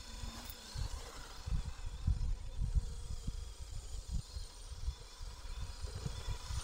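Faint steady whine of a radio-controlled crawler's electric motor as it drives through sand, under irregular low rumbling gusts of wind on the microphone.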